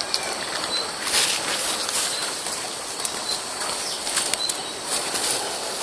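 A cloth sheet rustling and flapping as it is handled over dry undergrowth, with scattered crackles of twigs and leaves.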